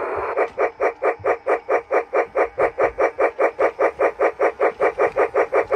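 Toy steam locomotive sound unit playing steady steam chuffs, about five a second, through a small speaker, starting about half a second in.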